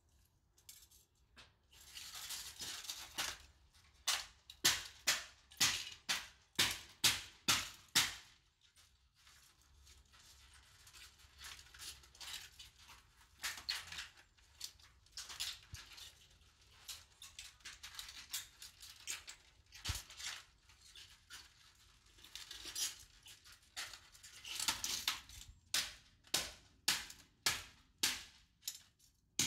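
Sharp snapping and cracking as the plastic and wiring of a DJI FPV drone are broken and cut apart by hand with tools. The snaps come in quick runs of about two a second, with scattered single ones between.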